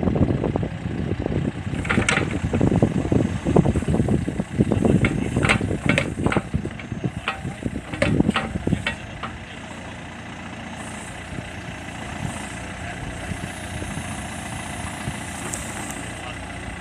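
Atlas backhoe loader's diesel engine working hard, with several sharp knocks over the first half, then dropping back to a steady idle about ten seconds in.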